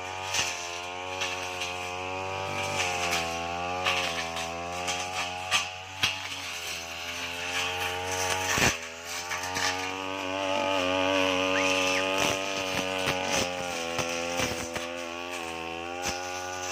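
Petrol brush cutter engine running hard, its pitch rising and falling as it works through thick grass, with sharp ticks scattered throughout.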